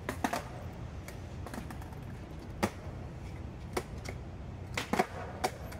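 Skateboard clacking on wet pavement as a skater practises tricks: several sharp clacks of tail pops and landings, some in quick pairs, over a low steady rumble.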